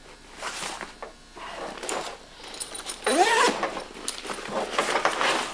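Nylon backpack being handled and turned over on a table: fabric rustling, with the clatter and rasp of its straps, buckles and zips.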